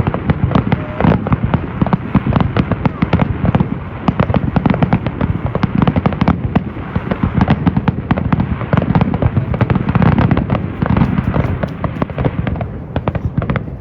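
Fireworks going off in a rapid barrage: many sharp bangs a second, overlapping, with crackling over a low rumble.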